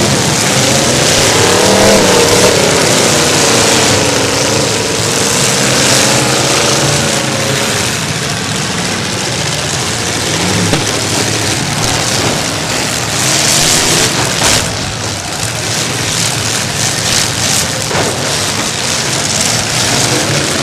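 Demolition derby cars' engines revving and running, their pitch rising and falling, over a steady noise, with a couple of sharp knocks in the second half.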